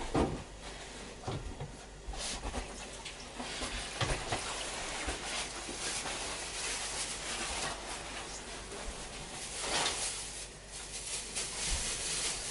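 Small-kitchen handling sounds: steady rustling with a few scattered light knocks of things being set down.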